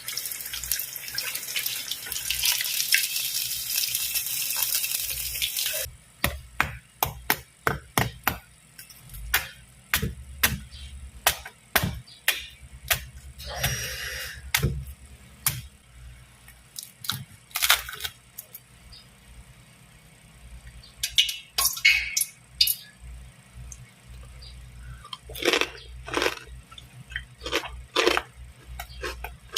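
A steady hiss for about six seconds that stops abruptly. Then a long run of sharp, irregular cracks and crunches, typical of crispy pata's crackling skin being broken apart.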